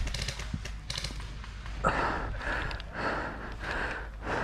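A person breathing hard close to the microphone, with a breath about every half second from about two seconds in.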